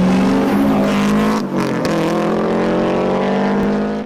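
Car engine running loud at high revs with a steady pitch, dropping briefly about one and a half seconds in, as at a gear change, then pulling again.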